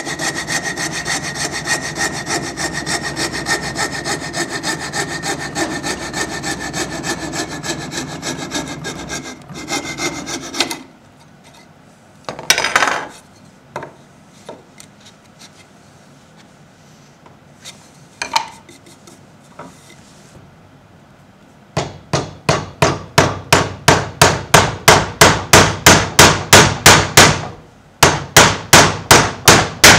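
Coping saw cutting through a wooden board in fast, even strokes, stopping about a third of the way in. After a few quiet knocks from the wood being handled, a chisel cuts into the wood in a rapid series of sharp strokes, about four a second, with a short break near the end.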